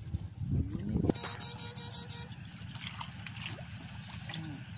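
Backpack battery electrofishing shocker buzzing for about a second as its probe is switched on in the ditch water, with wading and sloshing water around it.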